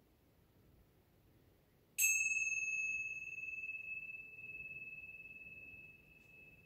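A small hand-held metal chime struck once about two seconds in, giving one high ring that dies away slowly, its upper overtones fading first.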